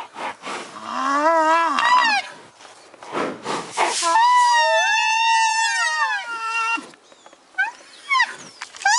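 Rhinoceros calling: a few high-pitched calls that rise and fall, the longest lasting about three seconds, with a breathy snort between them.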